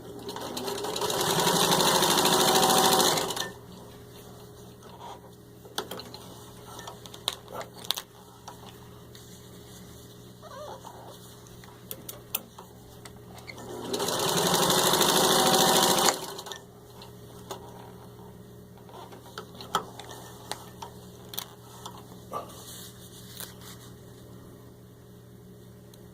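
1949 Singer 15-91 sewing machine stitching through four layers of thin leather, its gear-driven potted motor running in two bursts. The first lasts about three seconds and builds up in speed; the second, about two seconds, comes near the middle. Light clicks and knocks from handling the machine and the work come in between.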